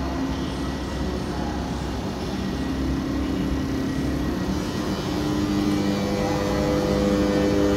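Railway train's steady mechanical hum with several held tones, growing louder as new higher tones join about five seconds in.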